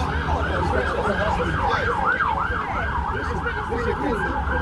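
Emergency vehicle siren in a fast yelp, its pitch rising and falling about four times a second, over a steady low rumble.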